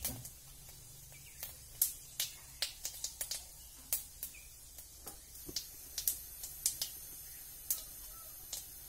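Spices spluttering in hot oil in an iron kadai: sharp, irregular pops and crackles, about a dozen, some in quick clusters, as the seeds are tempered.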